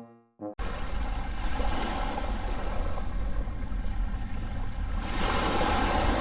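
The last note of a short musical jingle, cut off about half a second in by a steady wash of ocean surf and wind with a low rumble, swelling louder near the end as a wave breaks.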